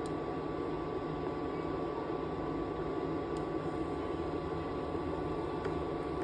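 Steady mechanical whir with a faint, constant high whine from a kitchen appliance running while the soup cooks.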